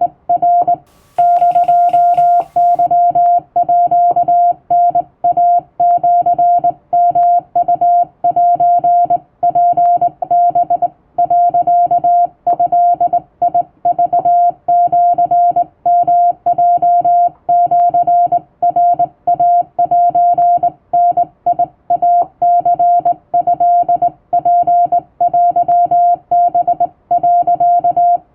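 Hand-keyed Japanese wabun Morse code: a steady tone of about 700 Hz switched on and off in dots and dashes, sent by hand on a telegraph key.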